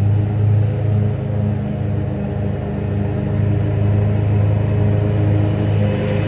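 Small engine running steadily at a constant speed: a low, even hum that doesn't rise or fall.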